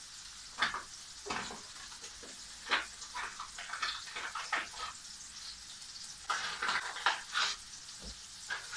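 Diced kiełbasa frying in oil in a pan, with a steady faint sizzle. Irregular clicks, rustles and knocks come through it as spice packets and jars are handled and seasoning is shaken over the pan.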